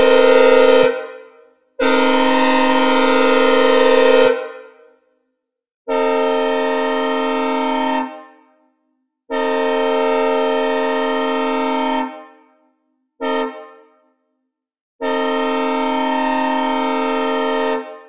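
Synthesized recreation of a Nathan K5CA-LS five-chime train air horn sounding a chord in separate blasts, each fading out on a reverb tail. One blast ends about a second in and a long hissy blast follows; after that come four cleaner blasts in the long, long, short, long grade-crossing pattern.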